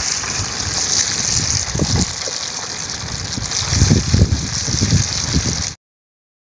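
Fish deep-frying in hot oil in an aluminium pan, a steady sizzle with a few low thumps. It cuts off abruptly near the end.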